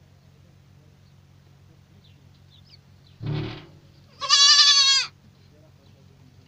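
Goat kids bleating: a short, lower call about three seconds in, then a loud, high, quavering bleat lasting about a second.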